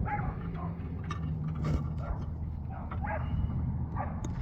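A dog making a few short pitched calls, near the start and again about three seconds in, over a steady low hum.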